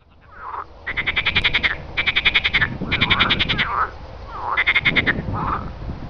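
Frogs calling in a chorus at a pond: a run of loud calls, each a quick series of pulses under a second long, following one another, with softer, lower croaks between them.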